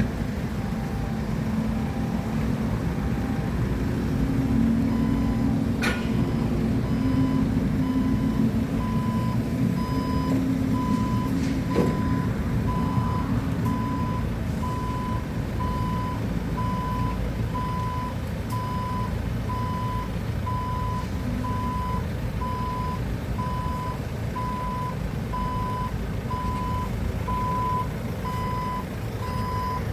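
Forklift engine running under the steady beeping of its reversing alarm, the beeps repeating a little faster than once a second. A couple of sharp knocks are heard, about six and twelve seconds in.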